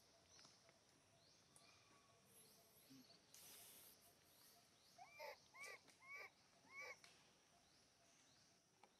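Four short animal calls about half a second apart, each rising then falling in pitch. They sound over a faint high chirp that repeats about twice a second.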